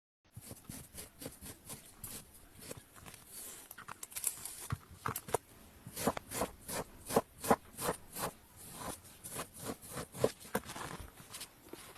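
Kinetic sand being cut and pressed: a run of short, crisp crunching strokes, two or three a second and uneven, loudest about halfway through.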